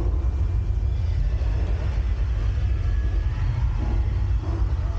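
Deep, steady rumble of the subway earthquake effect, the low shaking noise that the ride uses to simulate a quake.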